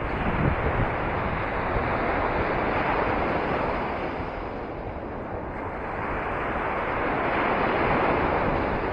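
Sea waves washing onto the shore, their rush swelling twice over several seconds, with wind buffeting the microphone.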